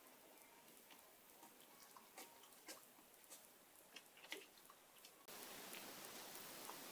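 Near silence with faint, scattered small wet clicks of a Shiba Inu mother licking her newborn puppies, over a low hiss that steps up louder about five seconds in.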